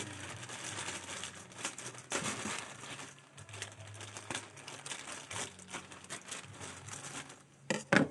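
Plastic parcel packaging crinkling and rustling as it is handled and opened, with a sharp, louder crackle just before the end.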